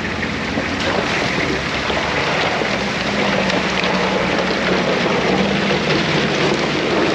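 A vehicle engine running steadily under a loud, even rushing noise of water or wind.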